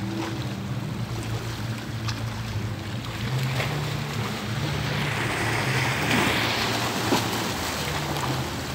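Sea waves washing, swelling briefly past the middle, under background music of slow, held low notes that change pitch in steps.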